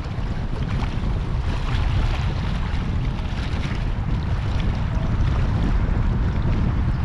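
Wind buffeting the microphone, a steady low rumble with no speech.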